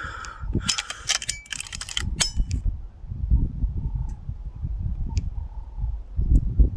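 Gusting wind rumbling on the microphone, with a cluster of sharp clicks and short metallic ticks from the Snowpeak M60 air rifle about one to two and a half seconds in.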